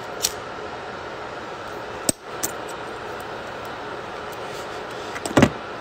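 Disposable lighter being flicked to light a blunt: a few short sharp clicks, over a steady hiss. A louder thump near the end.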